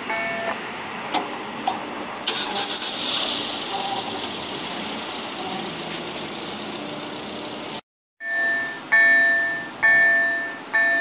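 A regional electric multiple unit passes over a level crossing: a steady rush of wheel and rail noise with a few sharp clicks, the crossing's warning chime fading under it at the start. After a cut, about eight seconds in, the crossing's electronic warning bell rings loudly, one fading chime about once a second.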